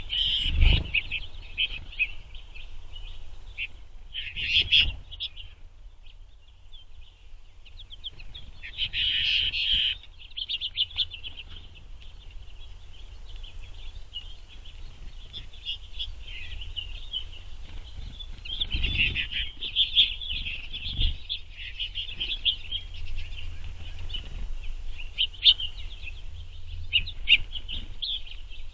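Finches twittering and chirping at a feeder, a busy, near-continuous chatter with louder flurries. A few low thumps come in among the calls.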